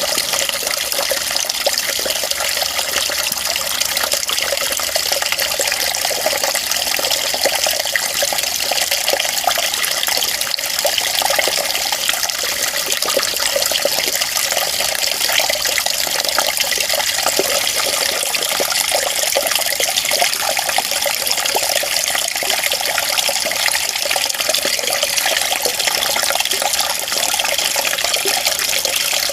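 Running water, an even, unbroken flow with its sound mostly in the upper range and almost no low rumble.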